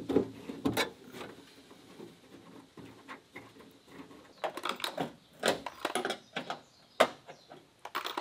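Irregular small clicks, taps and knocks of a hand tool and the metal latch rods inside an open pickup-truck door, as the door latch linkage is fiddled with; they come thicker in the second half.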